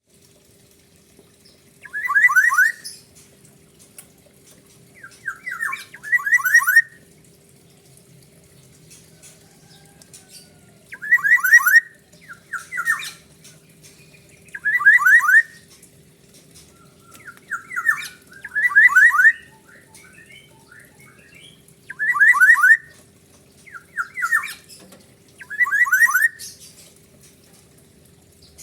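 Black-naped oriole (kepodang) repeating a harsh, siren-like call phrase, each a quick run of rapid sweeping notes, about ten times at intervals of two to four seconds. A faint steady hum lies underneath.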